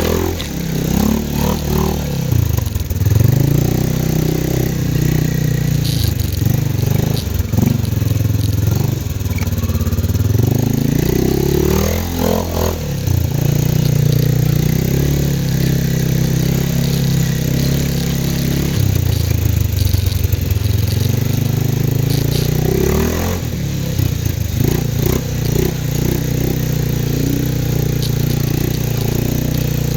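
CFMoto 500 ATV's single-cylinder engine running under changing throttle, its pitch dropping and climbing again several times. Now and then there is a short knock or clatter.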